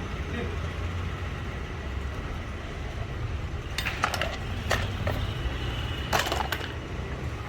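A few sharp clicks and clinks over a steady low rumble: two single clicks about halfway through, then a louder cluster near the end.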